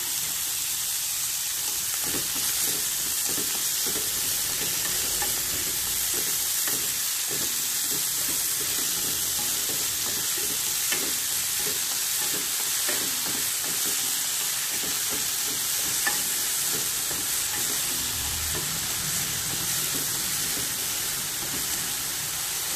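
Snail meat stir-frying in hot lard over high heat: a steady sizzle, with irregular scraping strokes as it is stirred in the pan.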